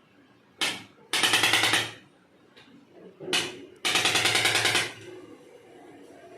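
Two bursts of rapid, even mechanical pulsing, each about a second long and each preceded by a short sharp sound.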